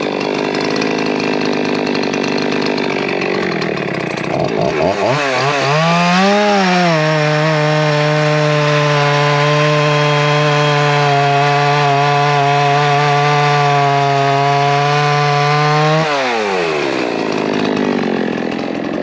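Poulan Pro Super 380 two-stroke chainsaw running at full throttle, its high-speed carburettor mixture not yet tuned. The engine sound is rougher at first, then revs up sharply about five seconds in. It holds a steady high pitch for about nine seconds, then the pitch drops away as the throttle comes off near the end.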